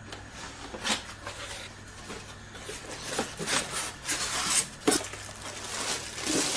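Packaging being handled: irregular rustling with scattered clicks and light knocks, getting busier and louder toward the end.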